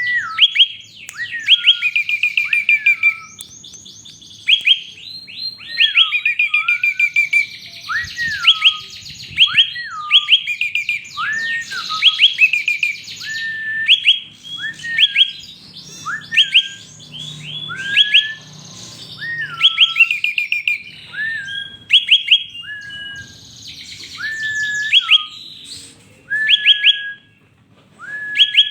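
Prenjak (prinia) singing a varied song: quick rattling series of sharp high notes alternating with slurred whistled notes that dip and rise, phrases repeated every second or two.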